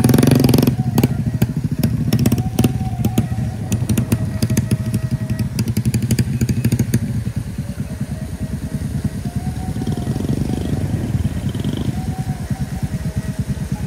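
A small motor scooter's engine running at low revs, its fast steady firing pulses heard the whole time. Clicks and rattles sound over the first half, with a short louder burst right at the start.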